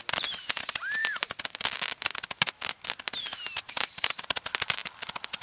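Small stick-mounted firework rockets launching: two whistles, each falling in pitch and lasting just over a second, one at the start and one about three seconds in, over dense rapid crackling and popping.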